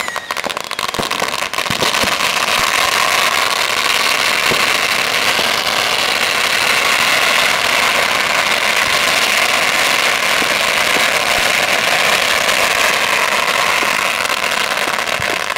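Ground fountain firework spraying sparks with a loud, steady hiss that builds up about two seconds in and dies away near the end, with a few scattered crackles.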